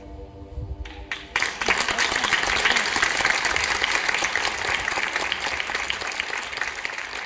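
Audience applause breaks out suddenly about a second and a half in, as the song's last held note fades out. It is dense and even, then slowly dies down.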